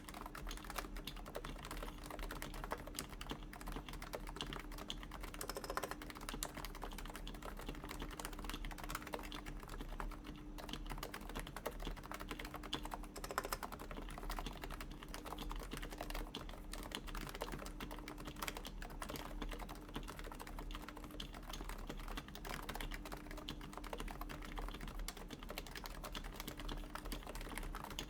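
Continuous fast typing on a Topre Realforce keyboard: lubed, silenced Topre electrostatic-capacitive switches in a steel plate, giving a dense, even stream of soft key thocks.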